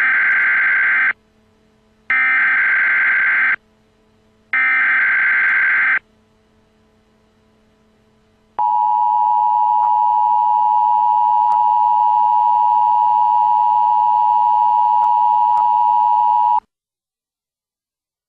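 Emergency Alert System header: three short bursts of rasping SAME data tones, each about a second and a half long, then after a pause the steady two-tone EAS attention signal for about eight seconds, which cuts off sharply.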